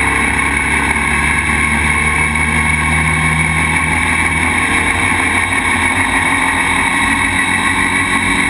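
Motorcycle engine running at a steady cruising speed on a dirt road, heard close up from a camera on the front fork, mixed with a constant rush of wind and road noise.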